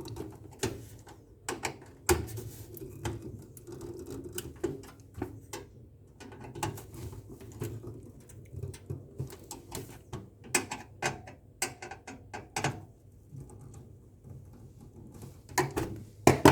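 Screwdriver tightening the screws that hold a motherboard to a metal computer cabinet: irregular small clicks and ticks of metal on metal, over a steady low hum.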